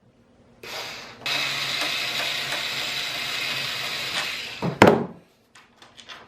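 Cordless drill driving out the landing-gear screws: a short burst, then the motor runs at a steady whine for about three seconds and stops with a sharp knock near the end.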